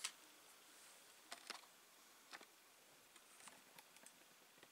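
Near silence with a few faint, scattered clicks as fingers handle a short piece of soft wire and a small metal ring.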